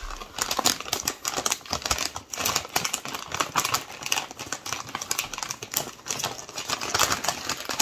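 Thick plastic Chex Mix bag crinkling as it is gripped and cut open with scissors: a dense, irregular run of crackles and snips.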